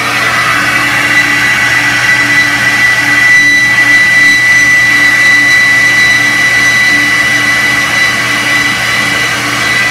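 Flow bench's vacuum motors running, drawing air through a Harley-Davidson Milwaukee-Eight cylinder head's port: a steady rush of air with a high whine.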